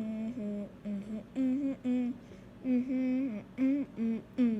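A child humming a short tune as a run of brief held notes, with small slides in pitch between them.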